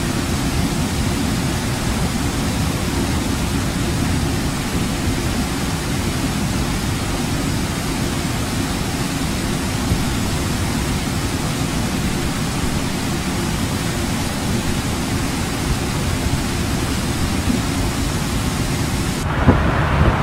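Hurricane-force wind and rain: a steady heavy rumble of wind buffeting the microphone, with rain hiss above it. About a second before the end the sound changes abruptly to a brighter rushing noise.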